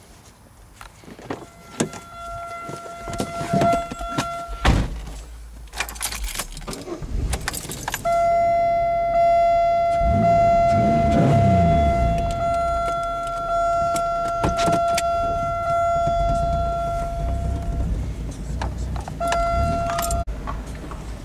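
Pontiac Grand Am GT being started: keys and door handled with clicks and knocks, while a steady electronic warning chime sounds on and off. From about four and a half seconds in, the engine runs with a low rumble and revs up and down briefly around ten seconds in.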